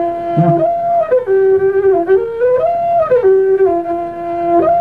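A flute playing a slow melody of long held notes, gliding between a lower and a higher note.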